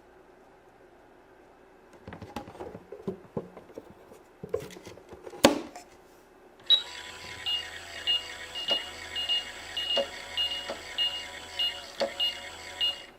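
Plastic toy pieces clicking and knocking as they are handled, then, a little over halfway through, a toy oven's electronic baking sound starts: a steady tone with a beep repeating a bit more than once a second, like a timer counting down.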